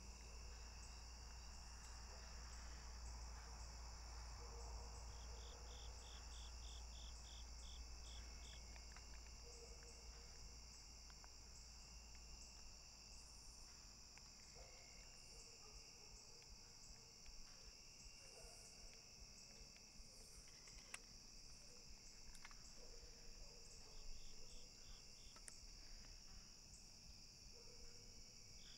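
Faint evening chorus of crickets and other insects: a steady high-pitched trill, with two short runs of quick pulsed chirps, about five seconds in and near the end. A low rumble underneath fades out about halfway through.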